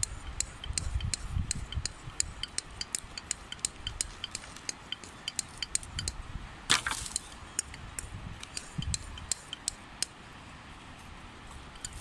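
Rapid, irregular light clicks and clinks, several a second, with one louder scraping knock a little past halfway, over a low rumble.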